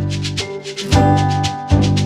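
Background music: sustained chords over a steady, even beat.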